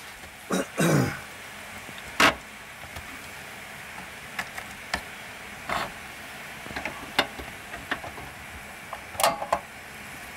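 A steady hiss from the gas hob and the frying pan, with scattered clicks and clinks as metal tongs work chops in the pan. There is a louder knock about two seconds in, and brief voice sounds near the start and near the end.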